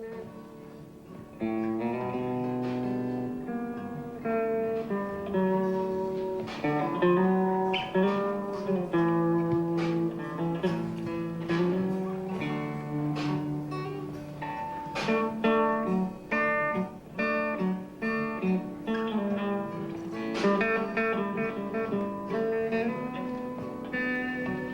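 Music: a guitar playing plucked notes and chords with no singing.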